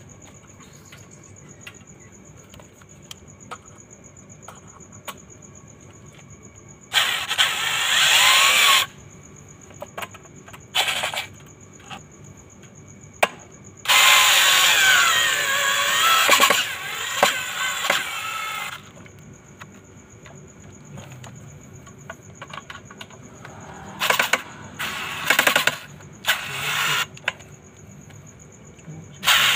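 Ryobi cordless drill running in several bursts, drilling into a PVC pipe, its motor pitch wavering under load. The longest run lasts about five seconds in the middle, and a string of short bursts comes near the end.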